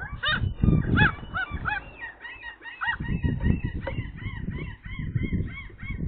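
A gull sitting on its nest gives a rapid run of short, high calls, about three to four a second, an annoyed alarm at a magpie tugging at its tail. Low rustling and knocks sound underneath.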